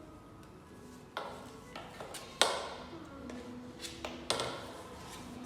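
Sharp clicks and knocks from vacuum cleaner parts being handled and fitted together, about seven irregular taps with a short ring after each, the loudest about two and a half seconds in.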